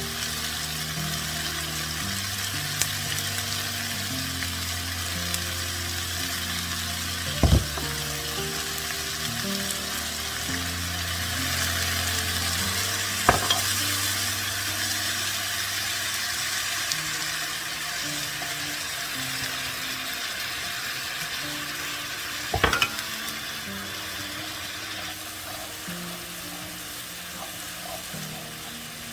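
Food sizzling as it fries in a pan, with three sharp knocks along the way, over background music with sustained low notes.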